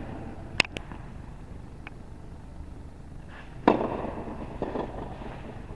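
Tennis rally on a hard court: sharp pops of the ball struck by racket strings and bouncing, two quick ones about half a second in and the loudest racket strike a little under four seconds in.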